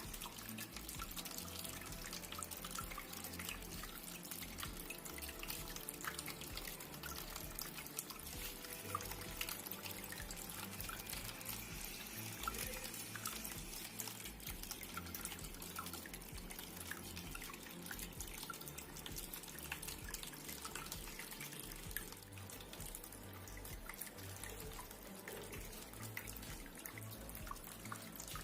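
Water trickling and dripping steadily from a small indoor cement waterfall fountain, fed by a mini submersible pump, with many small drips and splashes.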